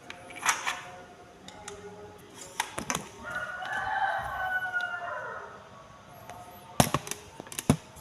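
A rooster crows once in the middle, a call of about two seconds that drops at the end. Sharp snaps and knocks of a spring-powered toy airsoft pistol firing at bottles come in pairs before it and again near the end, and these are the loudest sounds.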